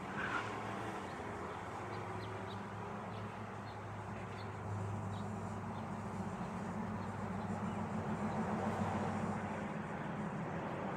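A steady low mechanical hum, as of a motor or engine running, that swells slightly about halfway through. A few faint short ticks sound in the first few seconds.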